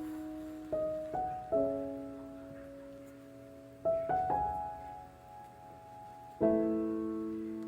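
Slow, gentle solo piano background music: a few soft chords and notes played at a time, each left to ring and fade.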